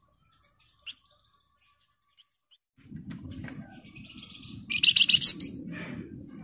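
Flamboyan songbird calling: a faint chirp early, then a loud, rapid chattering trill about three-quarters of the way through. A low rumbling noise runs under the trill from a little before halfway.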